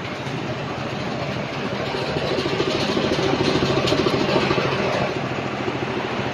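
Horizontal grinder running, a dense mechanical din with fast clattering, getting louder for a couple of seconds in the middle before easing back.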